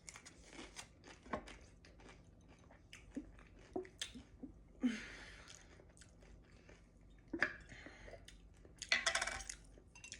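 A person eating Rotel dip up close: chewing and crunching with small wet mouth clicks, and louder crunches about five seconds in and again near the end.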